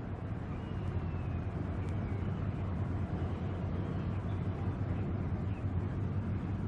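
A steady low rumble with an even hiss over it. A faint short whistle-like glide comes about a second in, and a single sharp click near two seconds.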